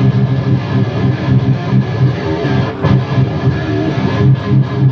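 Electric guitar playing a metal riff of rapidly repeated low notes, loud and rhythmic.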